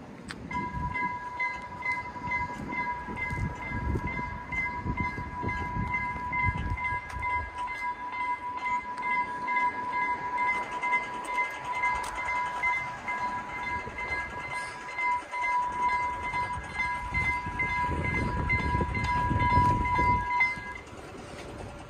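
Swedish level crossing's electronic warning bell ringing in a fast, steady repeating ding while the barriers lower. It starts about half a second in and stops about a second before the end, once the barrier arms are down. A low rumble comes and goes underneath.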